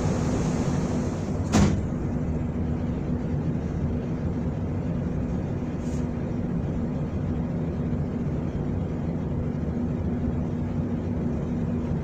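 Steady machinery hum with a low drone from equipment around an electrical control cabinet. A sharp click comes about a second and a half in, and a fainter one near the middle.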